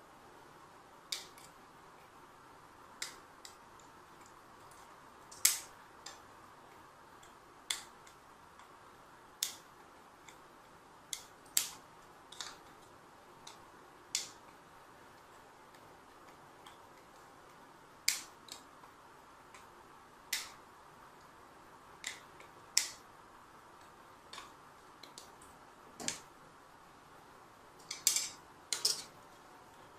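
Small flush-cut side cutters snipping the plastic case of a garage-door remote: sharp single snaps at uneven intervals, roughly one every one to two seconds, with a quick run of several near the end.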